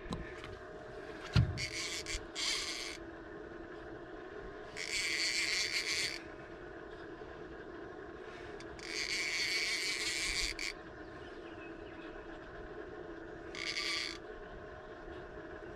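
Fishing reel cranked in four short bursts of whirring, as a fish is worked in on light tackle, over a steady low hum.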